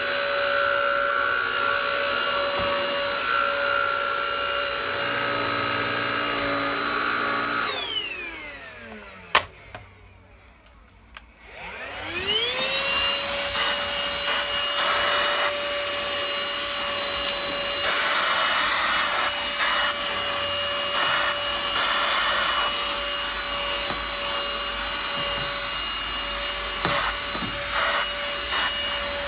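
Deik cordless stick vacuum cleaner running with a steady motor whine. About eight seconds in it is switched off and the whine winds down, with a sharp click. About four seconds later it is switched on again and the whine rises back to full speed.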